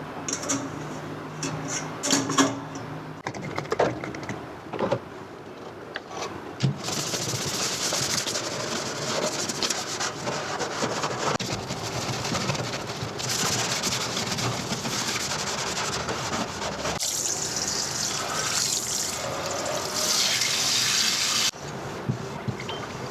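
Water running from a kitchen tap into the sink for about fifteen seconds, then shut off abruptly; before it, a few seconds of light clicks and knocks of handling things.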